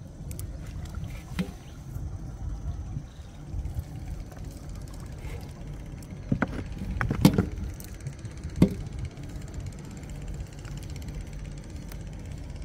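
Sharp knocks and thuds on a small boat as a gill net is hauled in by hand, a few scattered and the loudest in a cluster about six to nine seconds in, over a steady low rumble.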